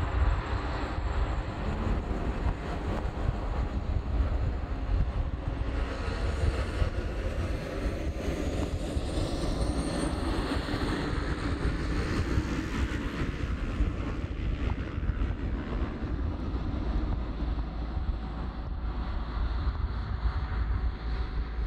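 Airbus A321-200 jet engines running on the runway: a steady, continuous rumble with broad roar and a faint high whine around the middle.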